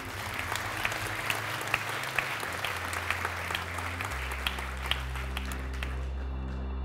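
Audience applauding throughout, the clapping thinning out near the end. Under it a deep bass drone plays from the demo reel's soundtrack, stepping down in pitch twice and growing stronger in the second half.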